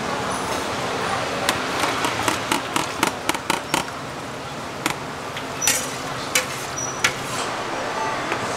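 Hot oil bubbling in a large steel fryer, with a quick run of sharp metal clicks and taps as a perforated skimmer ladle stirs and knocks against the wok, then a few scattered taps.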